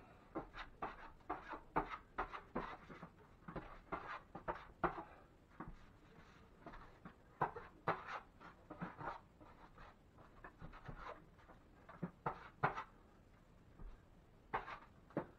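Steel drywall knife scraping quick-set joint compound (hot mud) over a ceiling patch in short strokes, two or three a second, in runs with brief pauses.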